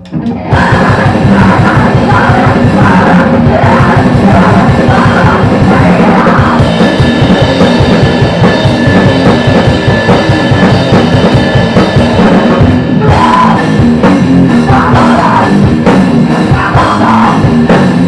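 Live rock band coming in all at once about half a second in, then playing loud and fast: electric guitar, a drum kit with cymbals, and vocals.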